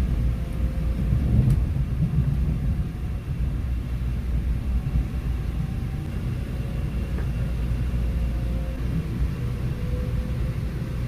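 Steady low rumble of an airport express train running, heard from inside the passenger car, with a faint whine that rises slightly near the end.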